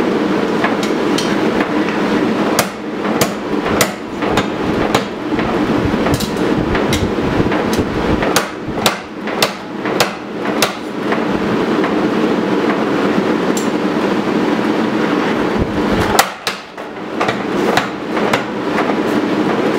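Hundred-year-old 50-pound Little Giant mechanical power hammer running and striking a hot knife blade between its dies in rapid blows, forging the blade down to thickness. The blows break off briefly about sixteen seconds in.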